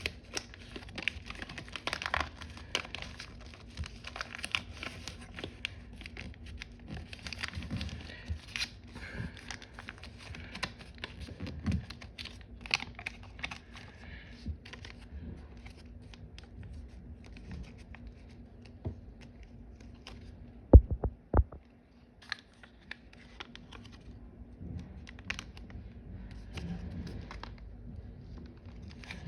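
Origami paper rustling and crinkling as it is rolled and creased by hand, with two sharp knocks close together about two-thirds of the way through.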